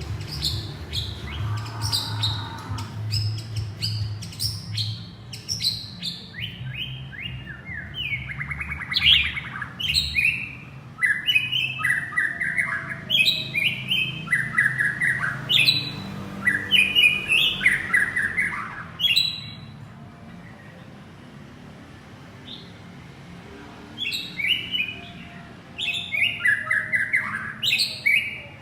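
Male white-rumped shama singing runs of quick, varied whistled notes, calling to his mate. The song breaks off about two-thirds of the way through and starts again a few seconds before the end.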